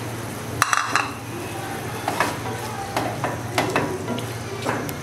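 A silicone spatula stirring chopped tomatoes through hot gravy in a pan, with a clatter about a second in and several short scrapes after it, over a light sizzle.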